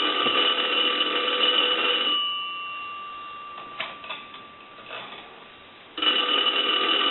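Northern Electric payphone's bell ringing to an incoming ring signal, in bursts about two seconds long: it rings until about two seconds in, the gongs hum on through the pause with a few faint clicks, and it rings again about six seconds in. It is a test of the newly installed bell and bell circuit, and ringing was one of the phone's issues.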